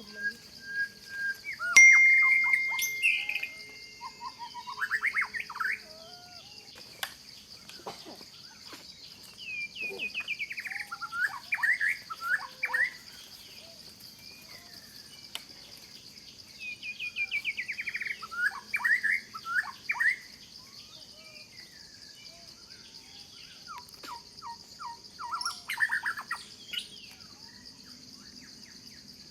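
Birds singing in four bouts of quick chirping notes, separated by short pauses, over a steady high insect hum.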